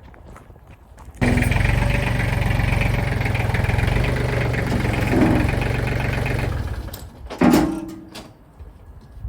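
An engine catches abruptly about a second in and runs steadily for around five seconds, then dies away. A brief loud burst with a falling pitch follows near the end.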